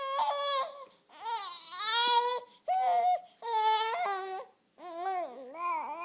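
Baby crying in about five short wails of a second or so each, with brief breaks between them, in protest at having the spoon of cereal taken away.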